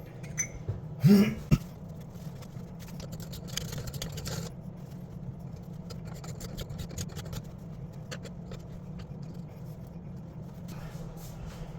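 Scattered light clicks and scrapes of faucet and pipe fittings being handled, over a steady low hum, with a short cough-like vocal sound about a second in.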